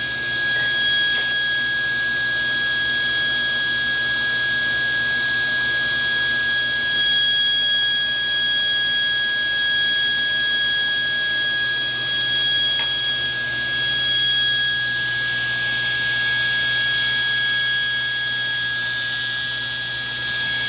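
Steady high whine of running woodshop machinery, a single tone with overtones. Over it, a short click about a second in and a rustling hiss in the last few seconds as masking tape is pulled and pressed on.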